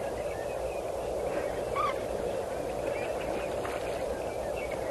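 Red-knobbed coot giving one short call, rising and falling in pitch, about two seconds in, over a steady low background noise.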